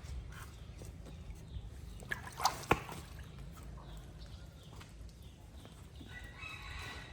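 Animal calls: a short sharp call with a click about two and a half seconds in, then a drawn-out call with several held pitches near the end, over a low steady rumble.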